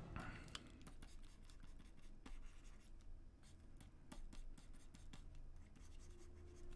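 Faint, irregular scratching and tapping of a stylus on a drawing tablet during digital sketching, over a faint low hum.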